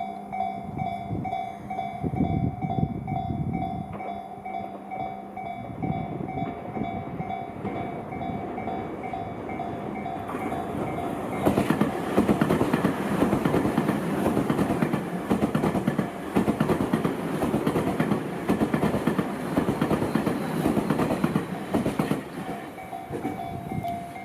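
Japanese level-crossing warning bell ringing in steady repeating pulses as a Tobu Tojo Line electric train approaches. From about ten seconds in, the train passes loudly, its wheels clattering over the rail joints and drowning out the bell, which is heard again near the end.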